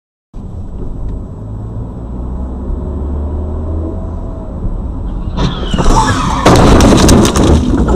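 Low engine and road rumble heard from inside a car. About five seconds in a screech builds, followed by a loud, rough crunching noise lasting over a second, the sound of a collision with a taxi that cuts across in front.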